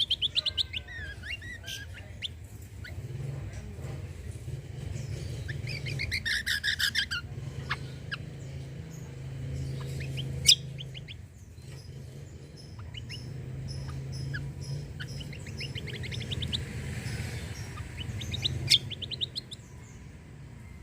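Kecial kombo songbird in full song: rapid trilled bursts mixed with short chirps, with three strong trill runs near the start, about six seconds in and near the end. A steady low hum runs beneath, and two sharp clicks come about ten seconds in and near the end.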